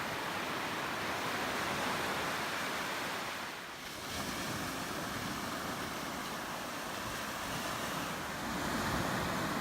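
Ocean surf washing steadily, with wind noise on the microphone; the wash eases off briefly a little before halfway through, then builds again.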